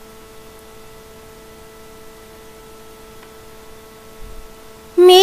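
A faint, steady musical drone held on one note with its overtones. About five seconds in, a voice comes in loudly, singing.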